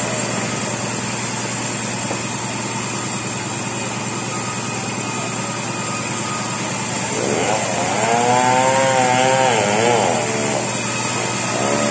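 Two-stroke chainsaw engine running steadily. About seven seconds in, a drawn-out, wavering voice rises over it for some three seconds, and it comes again briefly near the end.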